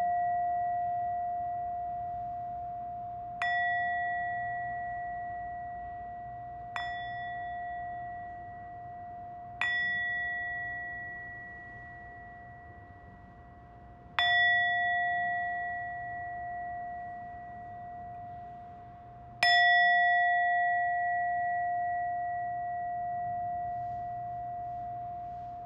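A bell struck five times at uneven intervals. Every strike gives the same clear, long-ringing tone with a few higher overtones, and each dies away slowly.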